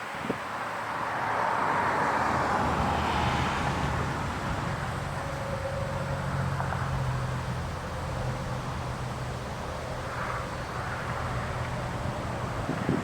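Federal Signal STH-10 warning siren far into its long wind-down, its rotor now turning slowly and giving only a low, steady hum of a few deep tones. A rush of noise swells and fades over the first few seconds.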